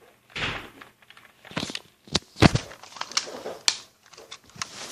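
A string of sharp clicks and knocks at irregular intervals, with a short noisy swish about half a second in.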